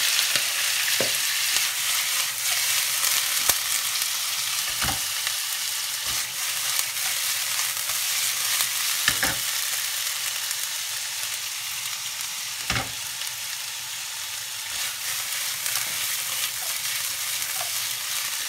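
Strips of bavette steak sizzling in hot vegetable oil in a non-stick frying pan, loudest just as the raw meat goes in and easing off a little after. A few short knocks as the meat is stirred around the pan.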